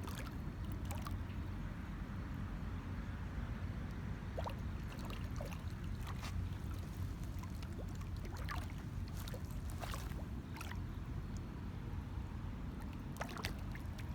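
Water splashing and sloshing in short bursts as a snapping turtle and a hooked bass struggle at the pond's surface, over a steady low rumble.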